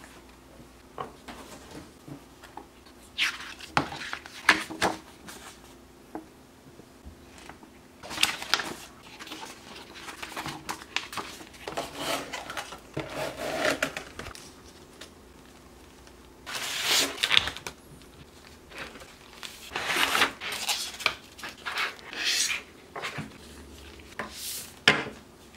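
Hands handling model-train packaging: clear plastic clamshell trays and plastic wrap crinkling, rustling and clicking in irregular bursts with short pauses between them.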